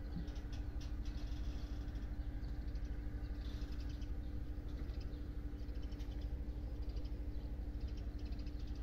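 Small birds chirping now and then over a steady low hum and a continuous low rumble.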